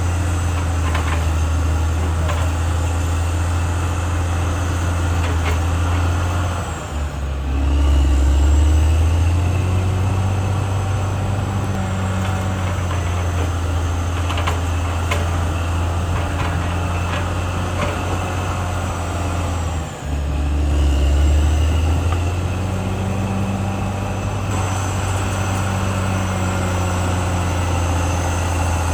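Caterpillar D6R XL bulldozer's diesel engine running steadily under work. About 7 and 20 seconds in the level dips briefly, then the engine note drops lower and grows louder for a second or two before settling back, with scattered faint clanks.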